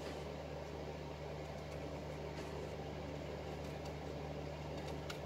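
Steady low hum with a few faint, short scrapes from a stainless-steel Mora Companion knife shaving curls off the edge of a softwood board.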